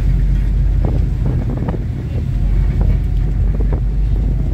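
Strong wind buffeting the microphone on the deck of a moving ferry, over a steady low rumble.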